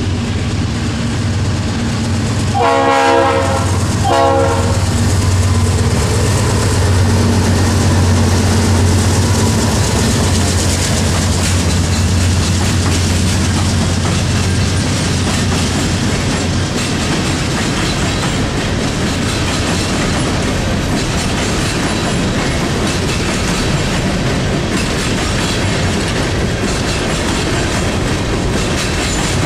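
N scale model diesel locomotive's DCC sound decoder playing a recorded GE C44-9W diesel engine, with two short horn blasts about three and four seconds in. The engine sound fades after about fifteen seconds, leaving the steady rattle of the model coal cars' wheels rolling on the track.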